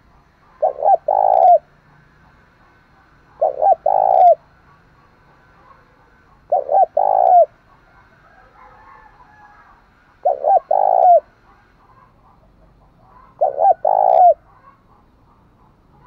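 Spotted dove cooing: five phrases, each two short coos followed by a longer, falling coo, one phrase every three to four seconds.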